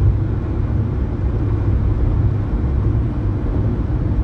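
Steady low road rumble inside a moving car's cabin on a highway: tyre and engine noise.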